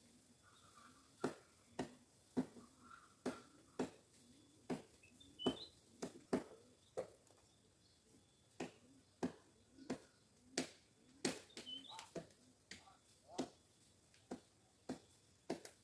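A series of sharp, irregular clicks and knocks, one every half second to a second, with a few faint high chirps, typical of small birds, between them.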